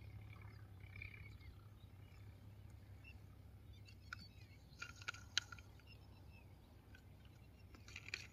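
Quiet outdoor background with a low steady hum and a few faint bird chirps in the first second, then small sharp clicks of a toy tractor being handled and its parts fitted, a cluster a little past halfway with the loudest there, and a few more near the end.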